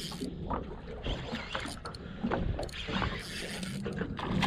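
Steady low rumble with scattered knocks and rattles aboard a small fishing boat.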